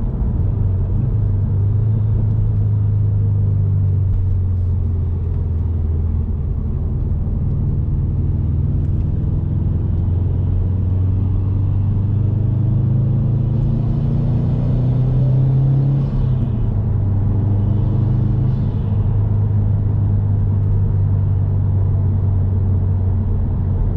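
Subaru WRX STI's turbocharged flat-four engine running under way, fitted with an aftermarket MAP Stage 1+ intake and tune, giving a low steady drone. Through the middle it rises gently in pitch as the car accelerates. About two-thirds in it drops suddenly at a gear change, then settles again.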